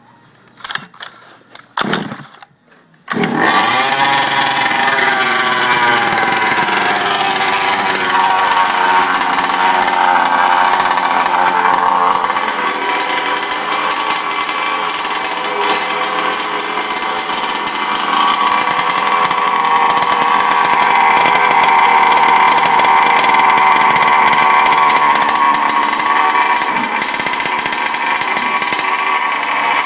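Cold start of a 1/5-scale RC truck's OBR 30.5cc gas two-stroke engine. After a few short attempts it catches about three seconds in, revs up and falls back, then runs steadily at a high, buzzing pitch.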